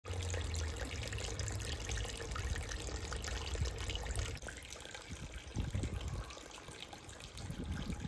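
Water from a lion-head wall fountain's spout splashing into a half-barrel pond in a steady trickle, a little softer after about four seconds.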